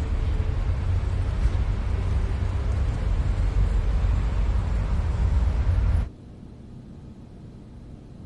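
City road-traffic ambience: a steady low rumble of passing cars. It cuts off suddenly about six seconds in, leaving quiet room tone.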